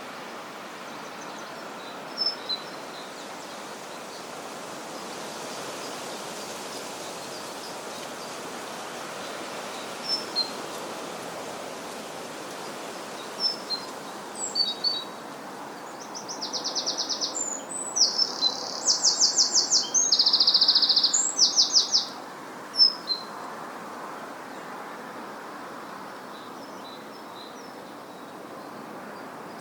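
Countryside ambience: a steady outdoor background hiss with scattered short bird chirps, and a run of loud, rapid bird trills from about 16 to 22 seconds in.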